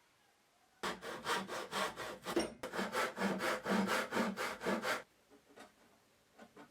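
Hand saw cutting wood in quick, even back-and-forth strokes, about four or five a second. It starts about a second in, pauses briefly, and stops about five seconds in; a few fainter strokes come near the end.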